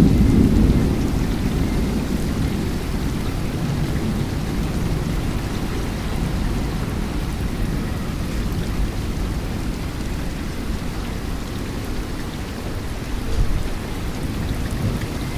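Heavy thunderstorm rain falling steadily under a low rumble of thunder that is loudest at the start and eases off, with a brief swell about thirteen seconds in.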